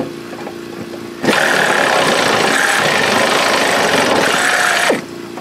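Power drill running at speed for nearly four seconds on a rusty mower-deck bolt, starting about a second in and stopping sharply near the end.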